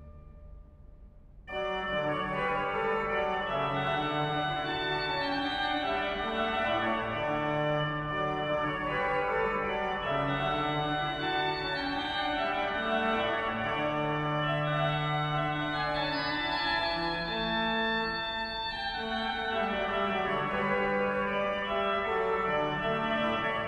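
Background organ music with slow, sustained chords, coming in about a second and a half in after a brief lull.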